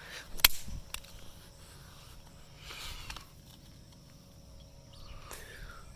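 A few sharp small clicks and soft scuffs of the pieces of a broken Nokia flip phone being handled: one sharp click about half a second in, a lighter one just after, and brief scuffing around the middle and near the end.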